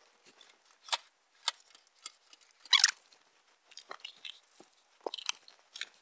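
Scattered light clicks and crinkly rustles of plastic cable ties being handled and picked through, with one louder crinkle about three seconds in.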